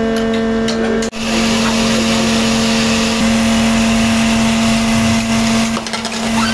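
Metal-working lathe with a four-jaw chuck running with a steady hum while its tool turns down a spinning wooden cue shaft, the cut giving a steady hiss over the hum. The sound breaks off for an instant about a second in.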